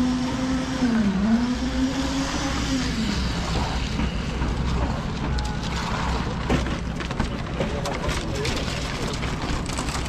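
A construction machine's engine running with a steady tone. It sags in pitch about a second in, as if under load, recovers, then fades after about three seconds over a low steady rumble. In the second half, wheelbarrows crossing the steel rebar mesh add sharp metallic clanks and rattles.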